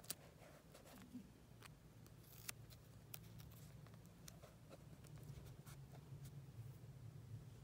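Faint paper handling: scattered light clicks and rustles as fingers press washi tape and a paper cut-out down onto a journal page, over a low steady hum.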